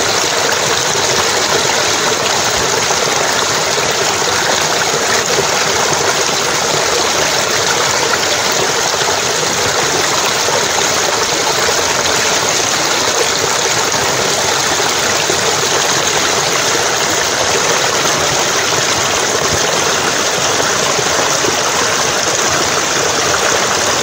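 Stream water flowing steadily over rocks in a small cascade, a constant rushing with no letup.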